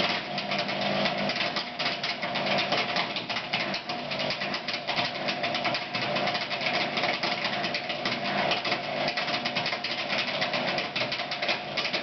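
Indesit washing machine spinning, with a steady hum under a rapid, unbroken knocking. This is the knock during the spin cycle that is the machine's fault.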